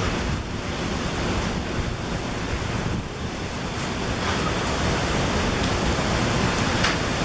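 Mantled howler monkeys howling: a steady, rough roar.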